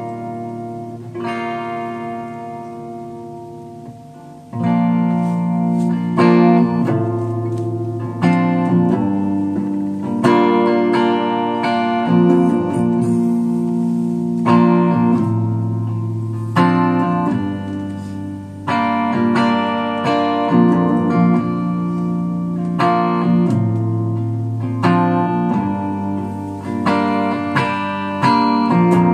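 Hollow-body electric guitar strumming chords, with no singing. A struck chord rings and fades for the first few seconds, then a louder strummed passage begins about four seconds in, with a new chord every second or two.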